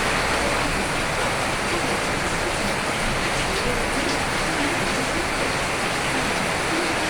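Steady heavy rain, an even hiss of drops falling without let-up.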